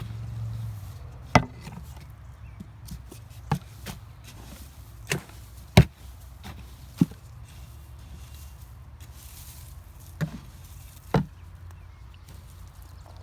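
Irregular sharp knocks, about eight of them a second or so apart, as harvested potatoes are dropped one by one into a container.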